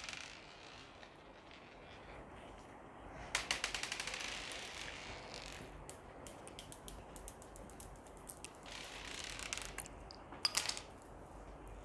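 Slime being squeezed and worked by hand, with air pockets popping in rapid crackling clicks. The clicks come in two bursts, about three seconds in and again about nine seconds in; the second burst ends with the loudest pops.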